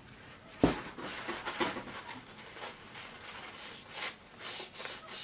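Paper towel crinkling and rubbing as a small laser-cut wooden part is wiped by hand, with one sharp knock on the workbench about half a second in. The rustling comes in short bursts, thickest near the end.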